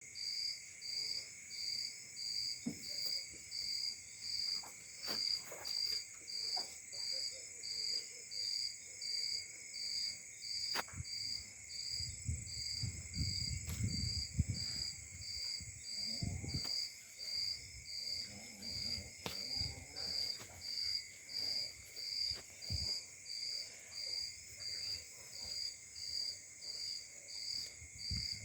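A cricket chirping steadily, about one and a half high chirps a second, over a steady high insect drone. Some low rumbling and a few knocks come in around the middle.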